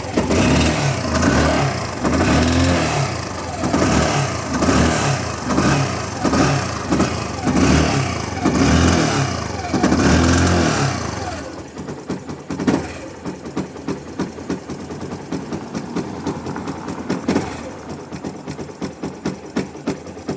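Yamaha Fazer 150's single-cylinder engine revved in repeated blips about once a second, then dropping back to an uneven idle about eleven seconds in. It makes a strange noise that the owner suspects comes from the oxygen sensor.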